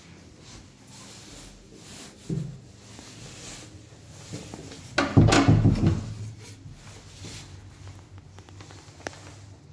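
Toilet cubicle door being pushed open: a knock about two seconds in, then a louder thud and rattle lasting about a second halfway through, and a sharp click near the end.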